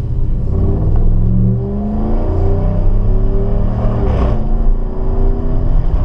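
Exhaust of a 2015 Ram 1500 through a Flowmaster Super 10 muffler, heard inside the cab while driving: a deep drone whose pitch steps up and down as the truck accelerates. A brief rushing noise comes about four seconds in.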